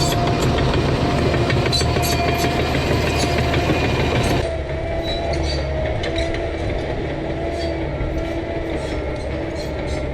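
John Deere 650K crawler dozer at work: the diesel engine runs steadily under load while the steel tracks clank and squeal, with a steady whine over the engine hum. About four and a half seconds in, the higher clatter eases off and the engine and whine carry on.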